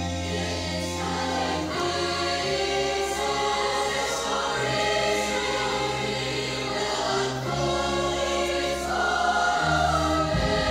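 Large mixed choir singing with a live band; low accompaniment notes are held and change every two or three seconds under the voices.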